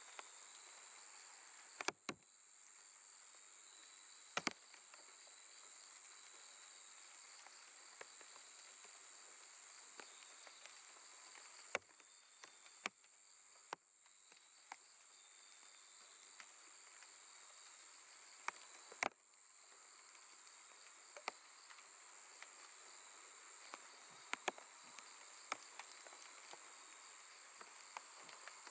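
Faint, steady chorus of night grass insects such as crickets, a continuous high-pitched trill with some shorter pulsed calls above it. Scattered sharp clicks stand out over it, the loudest about 2, 4.5, 12 and 19 seconds in.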